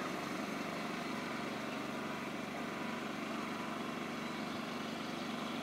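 Ride-on lawn mower engine running steadily.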